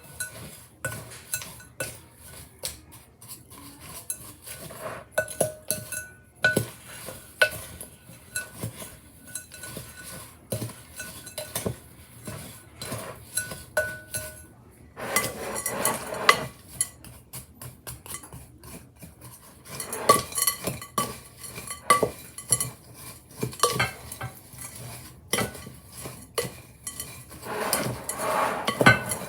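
A spoon stirring and scraping through oatmeal bake batter with chocolate chips in a mixing bowl, with repeated irregular clinks and knocks against the bowl.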